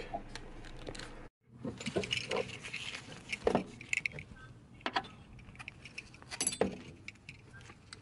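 Metal buckle hardware of a Tanaka seat belt harness clinking and rattling as its webbing straps are handled, with scattered taps and knocks.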